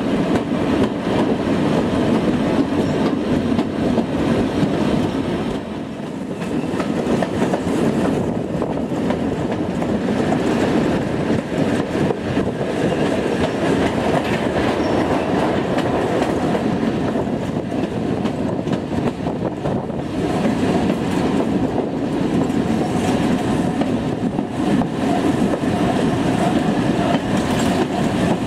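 Steady running noise of a moving goods train's wheels on the rails, heard from the open veranda of a brake van, with a brief dip in level about five to six seconds in.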